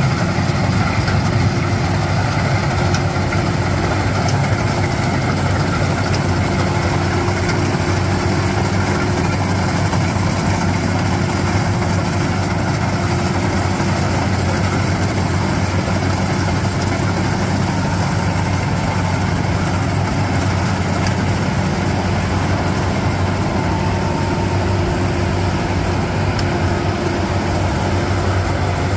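Rice combine harvester running steadily, its engine hum under the clatter of the threshing machinery. A very high, thin whine cuts in and out throughout.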